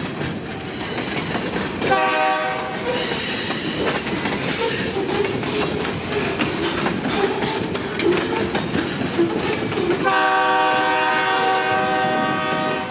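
Freight locomotive horn blowing a short blast about two seconds in and a long blast near the end, over the steady rumble and clickety-clack of the train rolling through the crossing.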